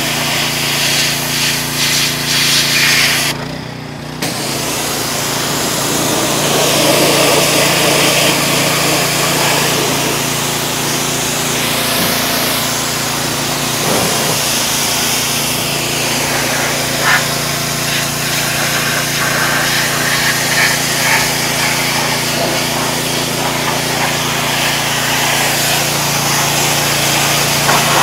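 Pressure washer running steadily, its engine humming under the hiss of the water jet blasting dirt off a bulldozer; the spray breaks off briefly about three and a half seconds in.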